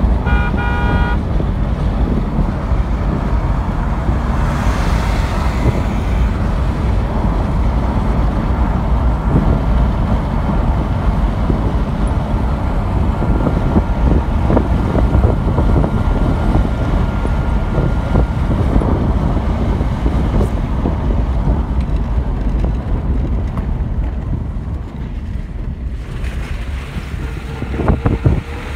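Wind rushing over the microphone with road noise from a moving vehicle, loud and steady. A horn toots briefly right at the start.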